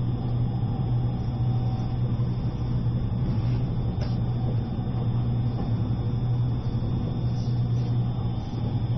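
Steady low hum inside the passenger cabin of a JR East E653 series electric train under way at low speed.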